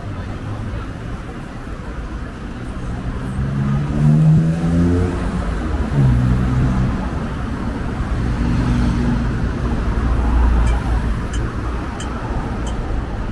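Street traffic: car engines running past, one accelerating with its pitch rising about a third of the way in, over a steady rumble of tyres and engines. Faint regular ticks, about one and a half a second, come in near the end.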